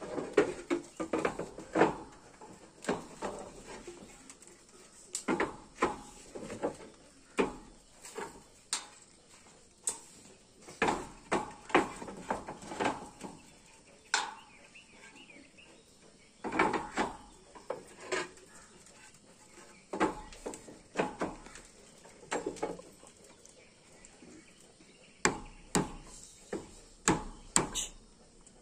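Terracotta roof tiles clinking and knocking against each other as they are handled and set into place: irregular sharp knocks, sometimes several in quick succession.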